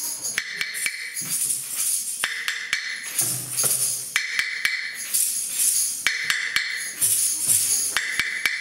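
Small hand tambourines played in a group, their metal jingles ringing in bursts about every two seconds, with sharp taps in between.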